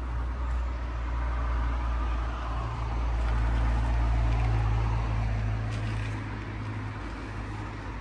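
Low engine rumble and tyre noise of a passing motor vehicle, swelling to its loudest about four seconds in and then fading.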